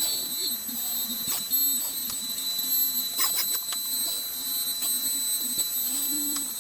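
Handheld wood router running and cutting a shallow latch-plate mortise into the edge of a door, with a steady high whine over a wavering lower hum and scattered ticks as the bit chips out the wood.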